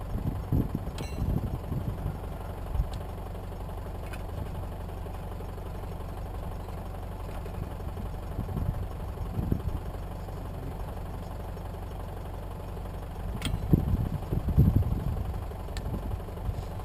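Mitsubishi Triton's engine idling steadily, kept running so the brakes stay pressurised while the truck is jacked. A few short knocks sound over it.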